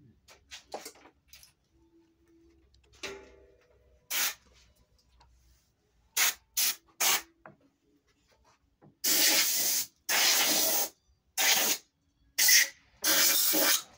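Hissing bursts of pressurised spray: three short squirts about six to seven seconds in, then several longer blasts of about a second each from nine seconds on. A small knock with brief ringing is heard around three seconds in.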